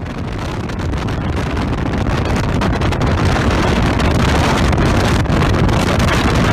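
Strong wind blowing across a phone's microphone: a loud, steady rushing that builds over the first couple of seconds.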